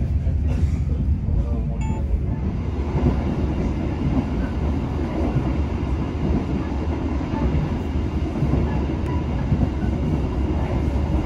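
Train running on the rails: a steady, heavy rumble of wheels and carriages in motion.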